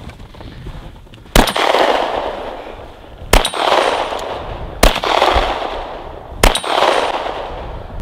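Four 9 mm pistol shots, fired singly about one and a half to two seconds apart, each trailing off in echo.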